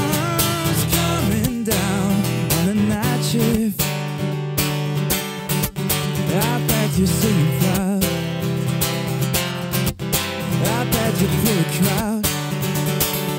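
Solo acoustic guitar strummed steadily, with a male voice singing over it without clear words.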